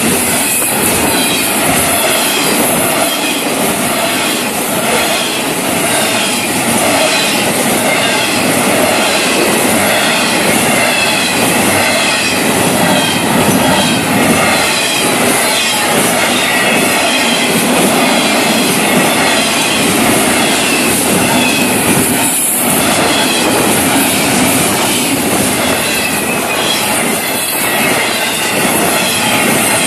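Florida East Coast Railway freight train's cars rolling past at speed: a steady rumble and rattle of wheels clicking over the rail joints, with a high squeal from the wheels riding over it.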